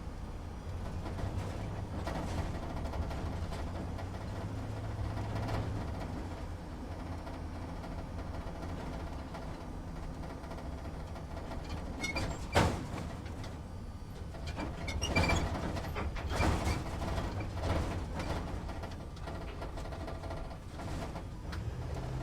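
Truck engine running at low revs, heard from inside the cab, with a steady low hum. A stretch of cab rattles and knocks comes in the second half, with one sharp knock a little past halfway.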